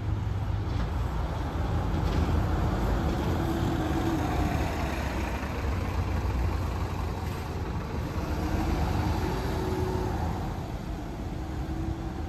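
Volvo city bus pulling away and driving past, its engine note rising and falling twice as it accelerates, over a steady low rumble.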